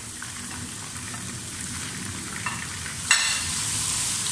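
Browned onions and ginger-garlic paste frying in oil in a pot, a steady sizzle that jumps suddenly louder and brighter about three seconds in while the mixture is stirred with a spatula.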